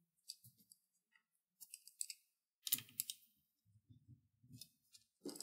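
Faint, scattered clicks and light taps of small parts being handled as the metal shielding plate over a Lenovo P52 laptop's memory modules is taken off, with a louder cluster of clicks about three seconds in and another near the end.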